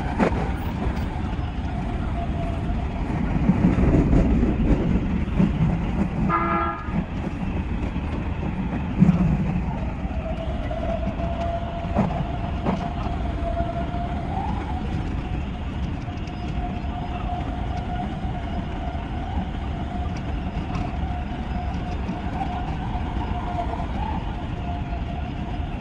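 Odakyu 5000 series electric train running, heard from the driver's cab: a steady rumble, and from about ten seconds in a steady, slightly wavering whine. A short horn-like toot sounds about six and a half seconds in.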